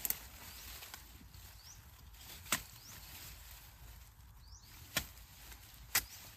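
A wooden-handled digging tool chopping into soil and roots with sharp, short blows: four strikes, unevenly spaced one to two and a half seconds apart.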